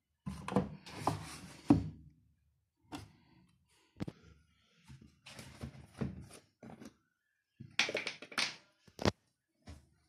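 Irregular plastic clunks, clicks and rustles from handling a plastic bottle and pulling out a washing machine's detergent drawer, with a sharp click about 9 s in.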